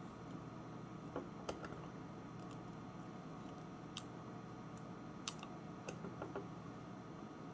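Master Lock combination lock being worked open with a shim cut from a Coke can: sparse small clicks and taps, a second or more apart, with a cluster near the end, over a steady background hum.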